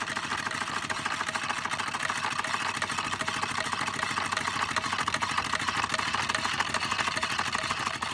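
A Märklin 4176/2 Stirling hot-air engine running and driving a Doll tin toy reaper by belt: a fast, even mechanical clatter of small metal parts ticking over in a steady rhythm.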